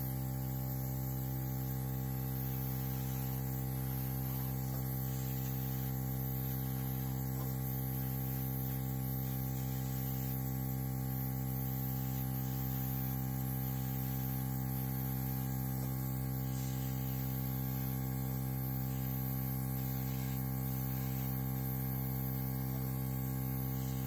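Small electric air compressor running with a steady, even hum, with a faint hiss of air from the handheld nozzle blowing wet acrylic paint across the canvas.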